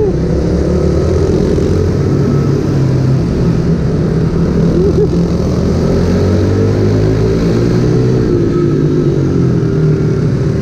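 Mini motorcycle engines running, their pitch rising and falling with the throttle, over a loud low rumble.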